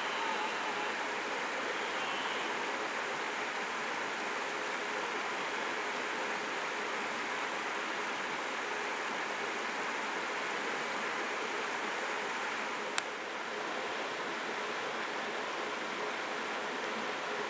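Steady rushing of running water. A red deer stag's roar trails off faintly right at the start, and a single sharp click comes about 13 seconds in.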